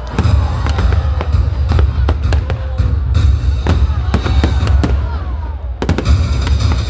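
Fireworks bursting in quick succession, many sharp bangs over a continuous low rumble, with music playing along.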